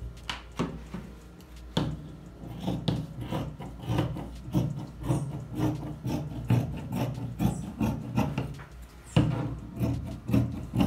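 Scissors cutting through cotton fabric on a table: a steady run of snips, about two a second, starting about two seconds in.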